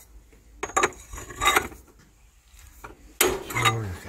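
Screw puller drawing a cylinder liner out of a tractor diesel's engine block against wooden bracing blocks: a few sharp knocks and creaks of wood and metal under load, the liner held fast by its perished rubber sealing rings.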